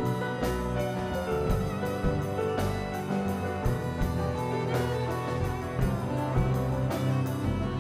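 Live instrumental music from a small string ensemble, violins and cello with keyboard, playing held bowed notes punctuated by sharp accented strikes every couple of seconds.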